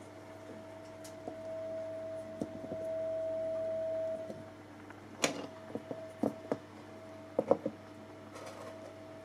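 A steady electric tone from an amplifier-driven wire coil setup. It swells louder for a couple of seconds while a black block is held against the coil, then eases back. From about halfway through come several sharp knocks as the block is set down and moved on the chipboard bench.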